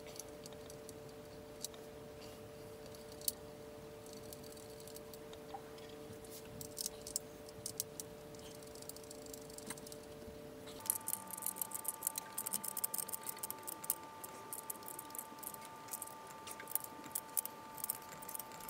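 Faint small metallic clicks and light rattles of hands handling brake parts in the engine bay: the master cylinder, booster and brake lines. The clicks are sparse at first and come thicker in the second half. Under them runs a faint steady two-tone hum that jumps higher about eleven seconds in.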